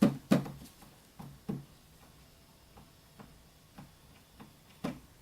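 Fingertip taps on the plastic case of an X2Toys Teletraan 1 replica, about nine short irregular knocks, the loudest right at the start. Each tap steps the touch-sensitive LED brightness control up toward its highest setting.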